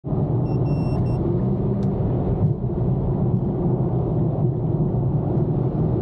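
Steady engine and tyre rumble inside the cabin of an Infiniti M37S with its 3.7-litre V6, cruising at highway speed. A short high electronic beep sounds about half a second in.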